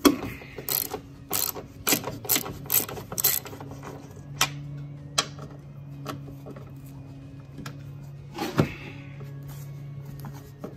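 Socket ratchet clicking on the 14 mm strut top-mount nuts of a Toyota Camry's front strut: quick runs of strokes for the first few seconds, then a few single clicks, one louder near the end. A steady low hum runs underneath.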